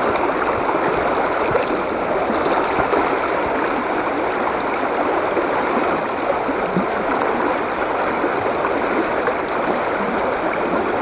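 Shallow mountain river rushing steadily over stones in a riffle.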